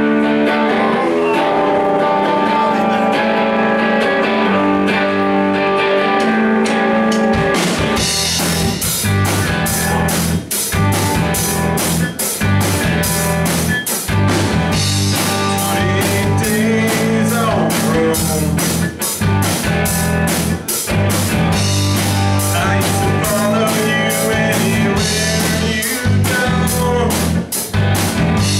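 A live rock band playing: guitars alone for the first seven seconds or so, then the drum kit comes in and the band plays on with a steady beat.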